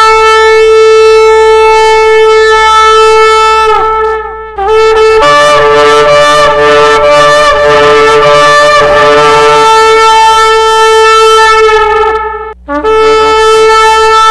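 Shofar (ram's horn) blown in long, loud, steady blasts. After a short break, a wavering, unsteady stretch of notes follows, then another long blast after a brief gap near the end.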